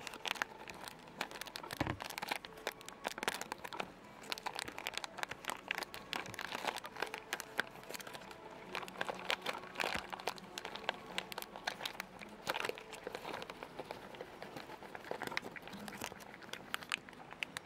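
A cat crunching dry kibble from a bowl: a rapid, uneven run of small crunches and clicks as it chews.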